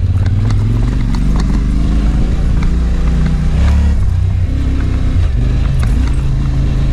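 Dirt bike engine running at low revs, its pitch rising and falling unevenly as the throttle changes, with small clicks and knocks over it.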